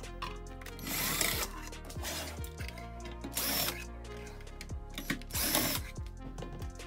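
Electric screwdriver running in three short bursts, about a second in, about three and a half seconds in and about five seconds in, driving out the steel screws that hold a power transformer's bracket to a sheet-metal chassis. Background music with a steady beat plays throughout.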